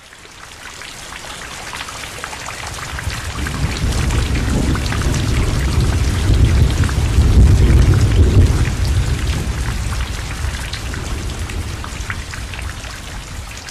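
Steady rain with a fine patter of drops, fading in at the start, and a long rolling rumble of thunder that swells to its loudest around the middle and then slowly dies away.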